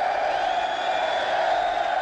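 Large crowd of men cheering and yelling, a steady wall of shouts.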